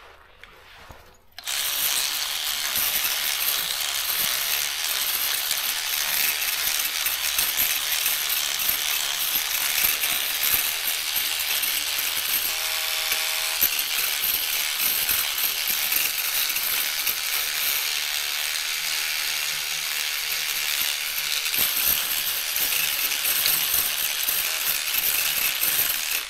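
Electric cleaning brush running and scrubbing the soapy plastic keys of a Daro 20 typewriter: a steady, rattling hiss that starts about a second and a half in and cuts off abruptly at the end.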